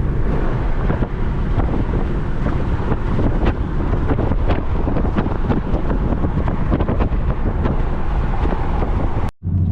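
Heavy wind buffeting on the microphone over a steady low vehicle rumble. The sound drops out briefly near the end.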